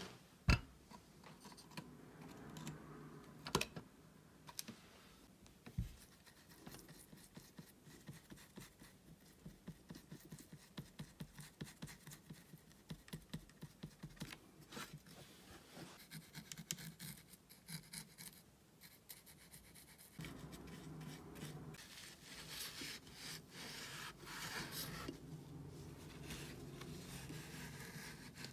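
Faint scrubbing of a paintbrush over watercolour pans in a metal paint tin, in short strokes about twice a second, then from about two-thirds of the way in a steadier rubbing as a tissue wipes the pans. A few sharp clicks sound in the first few seconds.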